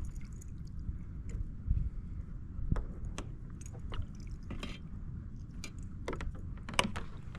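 Water sloshing and splashing in short bursts as a redfish is held in the water and moved to revive it before release, over a steady low rumble.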